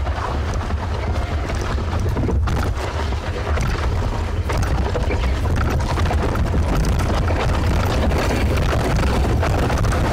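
Dog sled running over snow, its runners scraping with scattered bumps and knocks, under a steady low rumble of wind buffeting the microphone.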